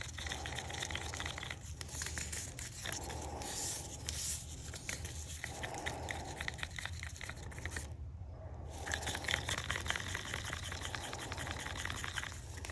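A craft stir stick scraping and ticking around the inside of a small plastic cup, mixing blue pigment into epoxy resin, with a short pause about eight seconds in.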